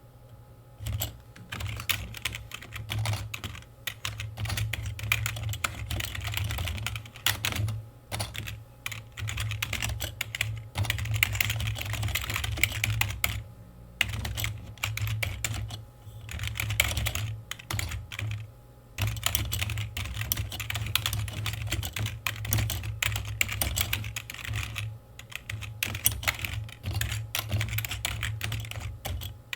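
Fast typing on a computer keyboard: rapid key clicks in runs of several seconds, broken by a few short pauses.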